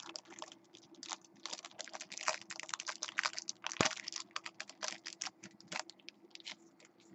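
Clear plastic trading-card sleeve and rigid top loader being handled as a card is slid into them: a dense, irregular run of small crackles and clicks.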